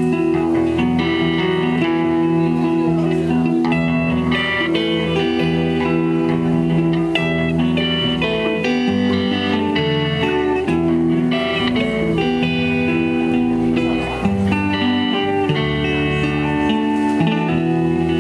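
Live amplified band playing an instrumental passage, with electric guitars over an electric bass and no singing.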